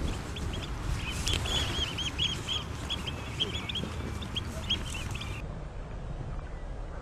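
Many Eurasian oystercatchers giving short, sharp piping calls over a steady low rumble: the alarm calls of a flock flushed into the air by a cannon-net firing. The calling stops abruptly about five and a half seconds in.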